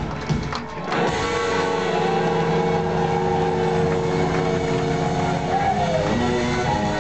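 Blues-rock band playing live, heard from the audience in a theatre: electric guitars, bass and drums. Steady drumming gives way about a second in to long held chords with sliding guitar lines over them.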